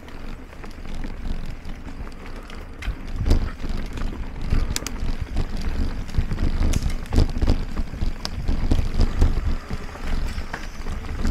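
Wind buffeting the microphone and a low rumble from a mountain bike rolling over a rough dirt trail, with scattered clicks and rattles from the bike.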